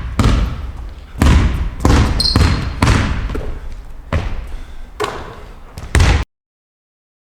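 A ball bouncing hard on a gym floor about once a second, seven bounces in all, each with an echoing tail. A brief high squeak comes about two seconds in.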